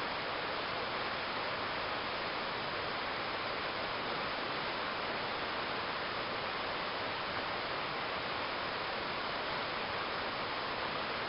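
Waterfall rushing: a steady, unbroken roar of falling water with no change in level.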